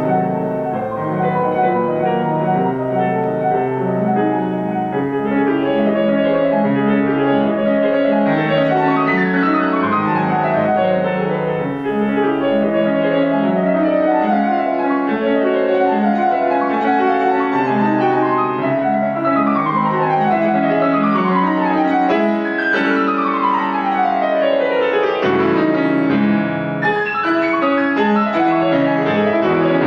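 Grand piano played solo in a fast classical passage: dense, rapid notes with several quick descending runs, the longest sweeping down from high to low about two thirds of the way through.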